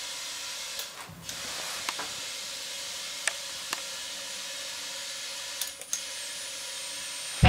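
Steady hiss of compressed air pressurizing a welded boat fuel tank for a soap-bubble leak test, with a few faint clicks.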